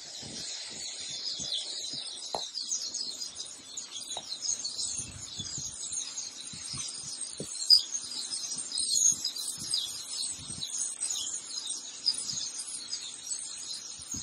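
A large roosting flock of European starlings chattering all together, a dense, unbroken mass of chirps, clicks and whistles as they gather to settle for the night.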